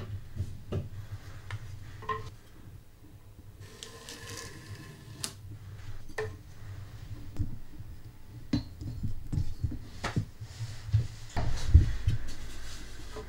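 Light handling of hand tools and a wooden board on a wooden bench: scattered clicks, taps and knocks, with a short rubbing sound about four seconds in, over a low steady hum.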